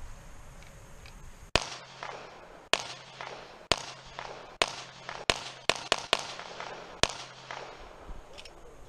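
A handgun fired nine times. Single shots come about a second apart, then a quicker string of four just before six seconds in. Each is a sharp crack with a brief echo tail.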